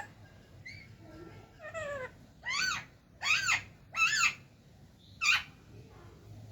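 Pet parrot calling five times in quick succession. Each call is short and rises then falls in pitch, and the middle three are the loudest.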